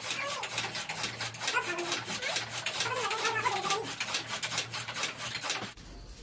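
Hand-cranked flywheel chaff cutter chopping green fodder: a fast, even run of blade strokes that cuts off abruptly near the end.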